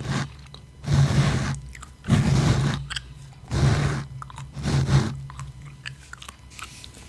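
Gum chewed close to the microphone, slow wet chews about once a second, dying away near the end.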